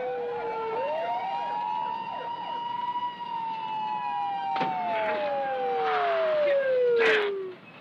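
Police sirens wailing, two overlapping at first, then the pitch slides slowly down as the siren winds down. Sharp noises cut in about four and a half and seven seconds in, the second the loudest, and the sound drops off abruptly just before the end.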